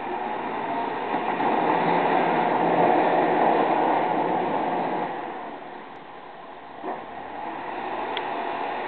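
Volvo BM L70 wheel loader's diesel engine running under load as its front plough blade pushes snow. The sound swells in the first half, eases off around six seconds in, and has a short knock about seven seconds in.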